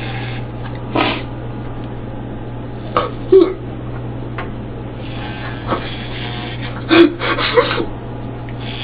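Electric hair clippers buzzing steadily as they shave a head, broken by a crying girl's sobs and gasps: once about a second in, twice around three seconds, and a cluster around seven seconds.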